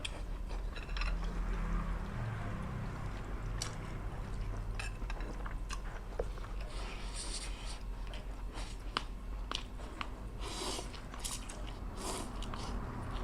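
Close-up mouth sounds of a person chewing a mouthful of food, with many small wet clicks and a few short hissy bursts.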